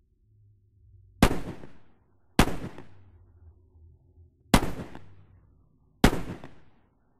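Four handgun shots fired inside a car, unevenly spaced over about five seconds, each sharp crack followed by a short fading tail.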